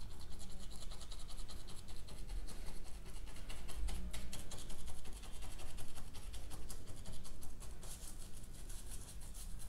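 Paintbrush bristles scratching and rubbing on paper in quick, short strokes as paint is blended and softened.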